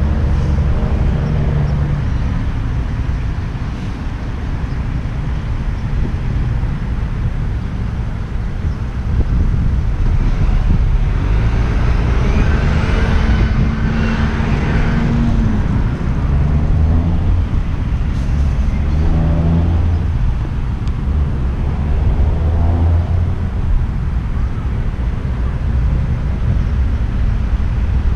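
Road traffic: motor vehicles driving past on the street, a steady low engine rumble with one vehicle passing louder about halfway through.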